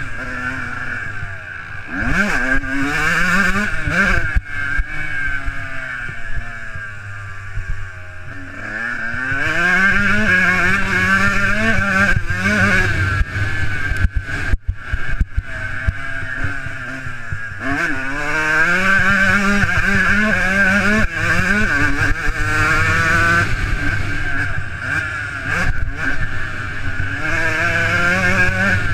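Motocross dirt bike engine under hard riding, recorded from the rider's helmet. The revs climb and fall again and again as the rider works the throttle and shifts through the gears, with a few brief drops in throttle.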